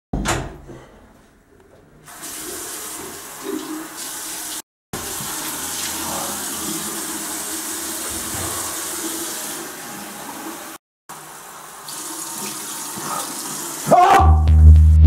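Water running from a bathroom tap into the washbasin, cut off briefly twice. There is a sharp thump right at the start. Near the end a much louder low drone sets in.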